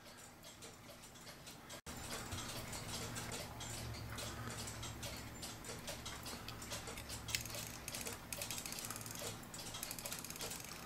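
Howard Miller ship's bell clock movement, out of its case, ticking and clicking faintly as it is handled, louder from about two seconds in. It is a movement that runs for a little bit and then stops.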